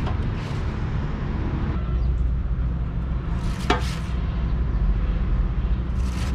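A steady low mechanical hum of a machine running, with a few short hissing scrapes over it, about half a second in, around three and a half seconds in and again near the end.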